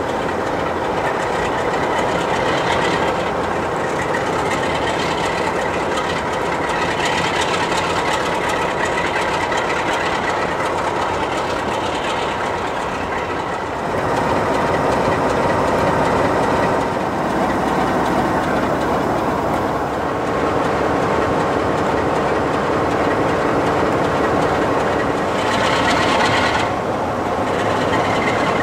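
Class 46 'Peak' diesel locomotive's Sulzer 12-cylinder engine running steadily at low power, a continuous engine drone with a thin held whine over it. The sound steps up a little about halfway through.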